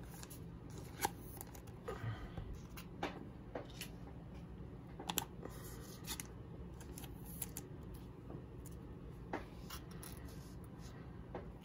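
Pokémon trading cards being handled and set down on a playmat: scattered short, soft clicks and taps over a faint steady room hum.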